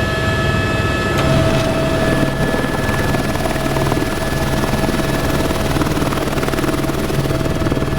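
Helicopter in flight: steady rotor chop and engine noise with a constant high whine.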